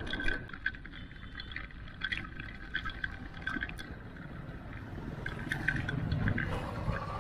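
Riding noise from a mountain bike rolling on a concrete road: a steady low rumble of wind and tyres with scattered light clicks. In the second half a small mini pickup's engine grows louder as it approaches and passes.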